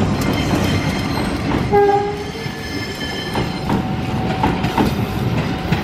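CC 201 diesel-electric locomotive passing close by, followed by its passenger coaches rolling past, with a steady rumble and irregular clicks of wheels over rail joints. A short pitched tone sounds about two seconds in, and a thin steady squeal comes in later.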